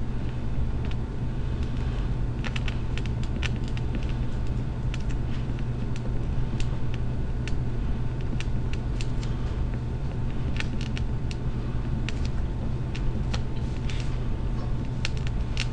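Felt-tip marker writing on paper: a string of short, irregular scratches and taps as letters are formed, over a steady low hum.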